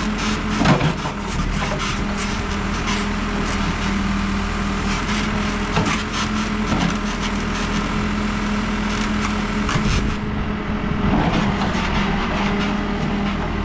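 New Holland backhoe loader's diesel engine running steadily under load, with the rear bucket scraping and crunching through clay and stones in many short cracks.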